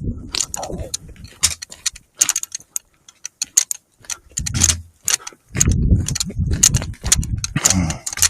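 Irregular small clicks and rattles of handled equipment, with stretches of low rustling about halfway through and near the end.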